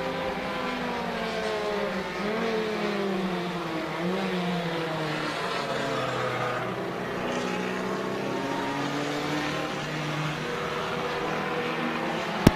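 Racing car engines on track, several at once, their pitch falling and rising as the cars lift off, change gear and accelerate. A short sharp click comes near the end.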